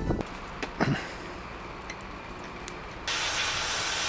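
A short thump about a second in. About three seconds in, a gas brazing torch starts suddenly and burns with a steady, even hiss.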